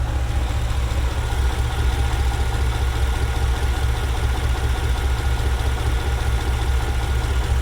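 1994 Chevrolet Caprice Classic's V8 engine idling steadily, running again on a newly replaced fuel pump.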